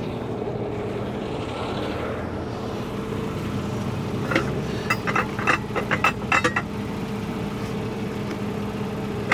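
An engine idling steadily with an even hum, and a quick run of sharp metallic clinks about halfway through.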